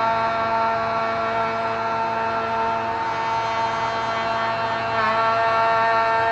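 Plunge router running at full speed, its bit back-cutting the edge of an end-grain hardwood cutting board in light passes up to a line; a steady high whine that dips briefly in pitch about five seconds in.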